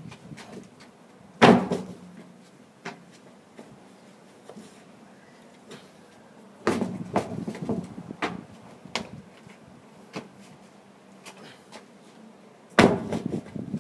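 Heavy 80 kg tyre flipped over and landing with a thud, three times about five seconds apart, each thud followed by a few lighter knocks.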